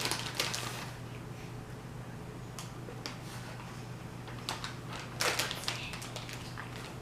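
Light rustling and a few soft knocks from handling food and containers, the clearest about five seconds in, over a steady low hum.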